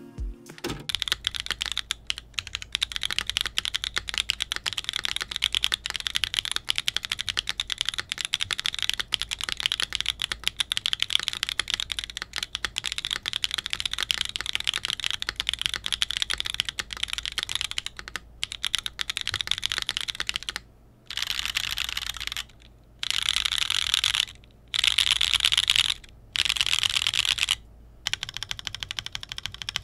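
Fast typing on a Float65 65% keyboard with a magnet-floated bent-steel case, FR4 plate, no foam, Tomorrow tactile switches and GMK keycaps, on a deskmat: a rapid, continuous clatter of keystrokes. In the last third the typing breaks off briefly about five times.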